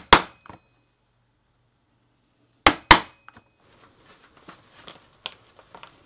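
Mallet striking a stitching prong through leather on a punching board: two quick double strikes, one at the start and one about three seconds in. After that come softer leather handling noises with light scattered clicks.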